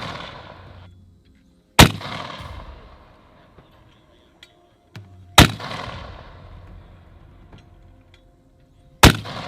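Mortar firing a fire-for-effect series: three sharp, loud reports about three and a half seconds apart, each trailing off in a long echo.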